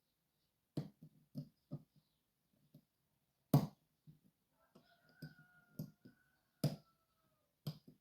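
Small metal clicks and taps of a pick and tensioner working the levers of a Sargent & Greenleaf 6804 lever safe lock, with soft handling bumps between them. About eight sharp clicks, the loudest about three and a half seconds in, and a faint thin tone through the second half.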